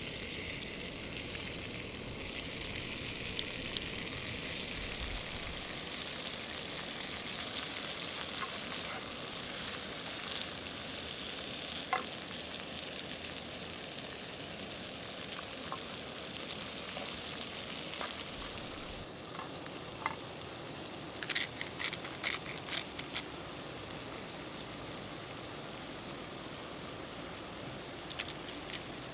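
Chanterelle mushrooms frying in butter in a pan, a steady sizzle. About two-thirds of the way in the sizzle thins out, and a run of small clicks and crackles follows.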